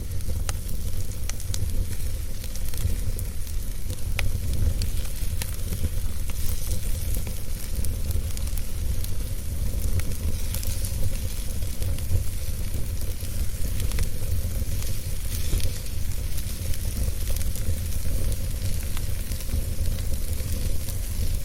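Wood fire burning in a fireplace: a steady low rumble and hiss with scattered sharp crackles and pops.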